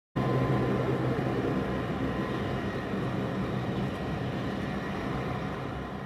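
Northrop Grumman E-2D Hawkeye's twin T56 turboprop engines and propellers running in flight, a steady drone with a thin high whine. It cuts in suddenly and starts to fade near the end.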